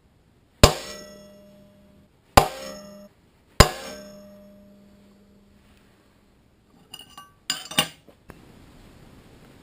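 Three sharp metallic clangs of cut steel plate pieces striking metal, each ringing and fading away, followed by a few lighter clinks near the end.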